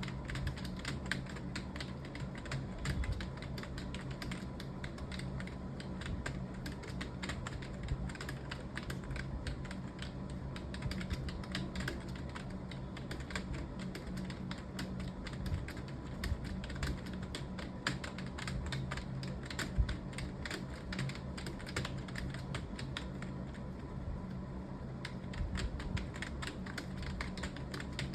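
Fast, continuous typing on a computer keyboard, many key clicks a second without a break, over a steady low hum.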